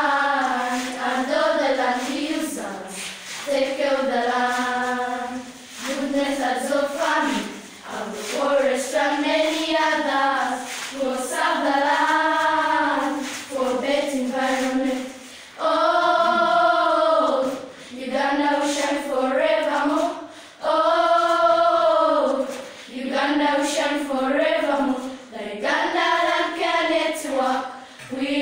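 A choir of school pupils singing a song together, in phrases of two or three seconds with short breaks between.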